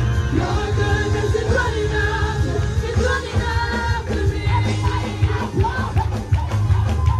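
Upbeat gospel praise music from a live church band: a sung melody over heavy bass and a steady drum beat.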